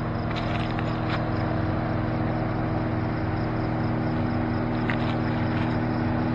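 A vehicle engine running steadily at an even pitch, with a few light clicks about half a second to a second in and again near five seconds.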